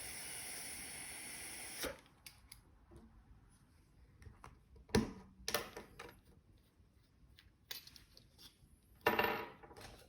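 Compressed air hissing steadily through a spray gun, cutting off about two seconds in, then light clicks and knocks of the gun being handled and worked, with a short burst of hiss near the end.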